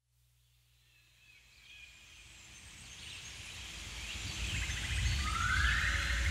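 Natural outdoor ambience fading in from silence: scattered bird chirps and calls over a low rumble, growing steadily louder, with a short rapid trill and a rising call near the end.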